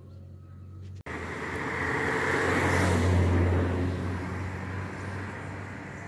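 A car driving past on the road, its engine and tyre noise swelling to a peak about three seconds in and then fading. A sudden brief dropout about a second in.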